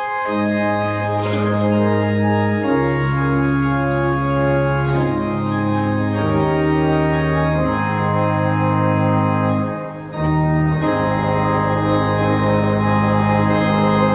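Church organ playing slow, sustained chords over a low bass line, the chords changing every second or two, with a short break about ten seconds in.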